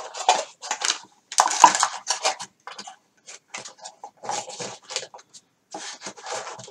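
Small parts and wires being handled on a workbench: irregular clattering, knocking and scraping of small hard plastic and metal pieces, loudest right at the start and again about a second and a half in.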